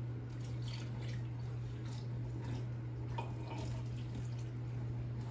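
Water poured slowly from a glass measuring cup into a crock pot, trickling and splashing onto a seared chuck roast, over a steady low hum.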